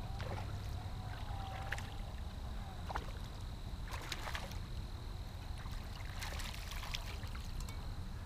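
A hooked crappie splashing at the surface as it is reeled in to the bank: several short splashes, the most around the middle and again near the end, over a steady low rumble.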